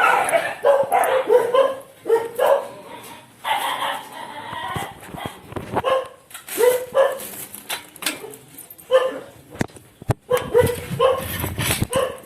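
A dog barking and yipping in short, repeated bursts, with a few sharp knocks about ten seconds in.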